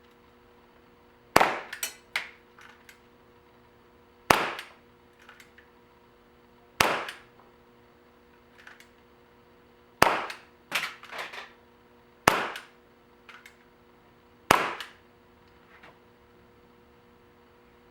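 Vintage Crosman 357 CO2 pellet revolver fired six times, a few seconds apart, each sharp shot followed by a few lighter clicks.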